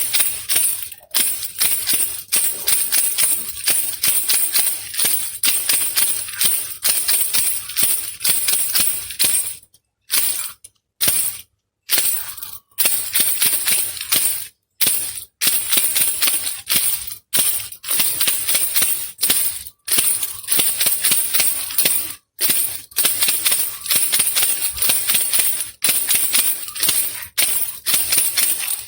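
A baby rattle (khulkhula) shaken rapidly and steadily, a dense, bright rattling of beads, broken by a few short pauses about ten to twelve seconds in.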